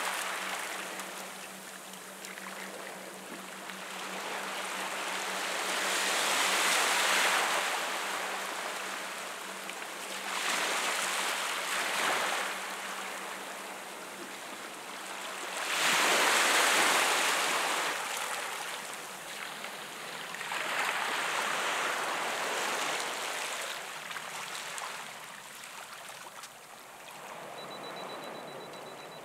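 Small sea waves washing in over rocks and the sandy shore, surging and ebbing in swells every few seconds.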